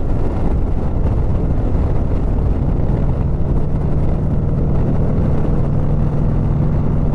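Motorcycle cruising at speed: wind rushing over the microphone with the engine's steady drone underneath. The engine's note becomes clearer and holds steady from about two and a half seconds in.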